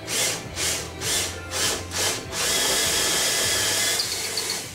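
Power drill boring out a hole in a wooden firewall with a larger bit, run in short pulses about twice a second, then held on steadily for a couple of seconds before stopping near the end.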